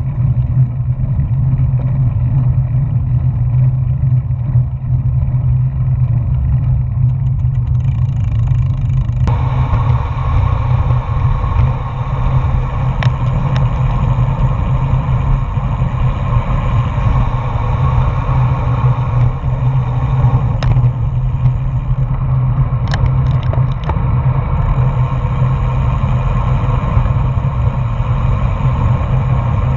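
Wind rushing over a bike-mounted action camera's microphone on a fast bicycle descent, mixed with tyre noise on tarmac: a steady low rumble that grows louder and brighter about nine seconds in, with a few sharp clicks.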